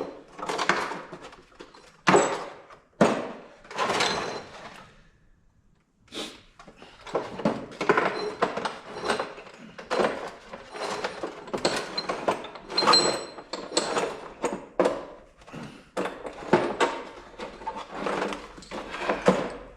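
Metal tools and engine parts knocking and clanking in irregular thunks and clinks, with a few hard strikes early, a short lull about five seconds in, then steady clatter.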